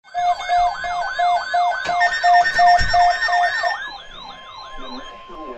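Electronic sirens yelping, rapid rising-and-falling sweeps about three a second layered with a pulsing beep. They fade after about four seconds while a single steady tone carries on.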